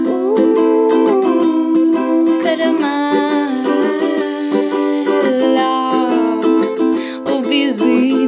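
Instrumental music between sung lines of a song: a low note held steadily under a melody that moves and slides in pitch.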